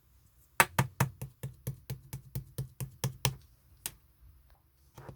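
Slime being pressed in the hand, giving a run of sharp, evenly spaced clicking pops, about four to five a second, that stop about two-thirds of the way in. A brief, softer squishing sound comes right at the end.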